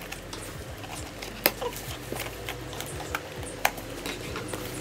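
A shipping package being handled and opened by hand: rustling and crinkling with scattered sharp clicks and snaps, the loudest about one and a half seconds in and again past three and a half seconds.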